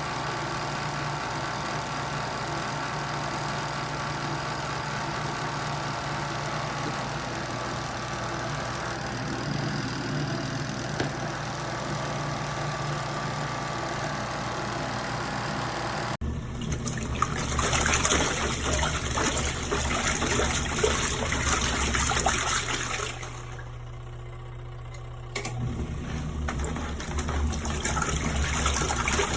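Small twin-tub portable washing machine running: a steady motor hum at first, then from about halfway water churning and splashing over a lower motor hum. The splashing drops away for about two seconds near the end.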